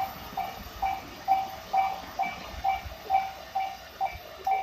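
Japanese level-crossing warning bell ringing a steady, evenly repeated ding at one pitch, a little over two strikes a second. Underneath is the faint rumble of a passing train.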